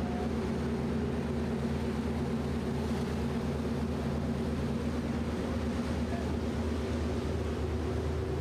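A fireboat's engines running steadily under way: an even, low drone that holds constant throughout.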